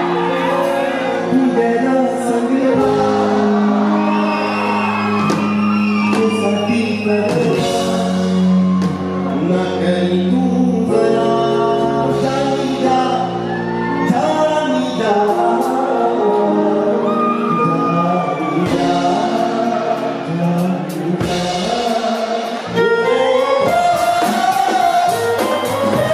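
A man singing a Punjabi song live into a microphone over sustained keyboard chords, in a large hall. A steady drum beat comes in near the end.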